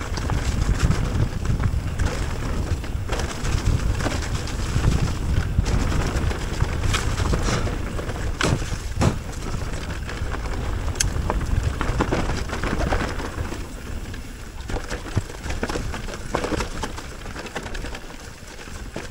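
Mountain bike riding down a rough trail: a steady rumble of tyres and wind buffeting the camera microphone, with frequent rattles and knocks from the bike as it goes over roots and rocks.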